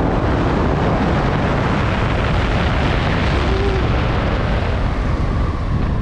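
Steady wind rushing over a helmet-mounted camera's microphone during flight under an open parachute canopy.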